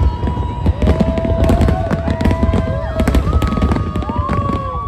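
Large aerial fireworks display: a dense, continuous run of bangs and crackles, with several long, steady whistle-like tones held over the top.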